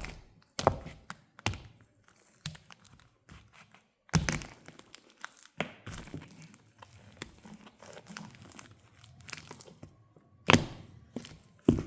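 Irregular thunks and taps of mule shoes stepping, with crackling, squishy sounds of banana crushed underfoot. Loud steps come about four seconds in and again near the end.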